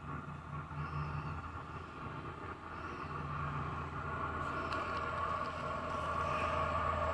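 Renfe class 251 electric locomotive hauling a container freight train, approaching from a distance: a low steady rumble and hum that grows steadily louder.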